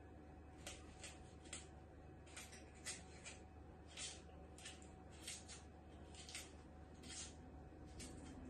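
Kitchen knife slicing a green bell pepper held in the hand, cutting pieces off into the pot: a string of faint, short, crisp cuts, irregular, about two a second.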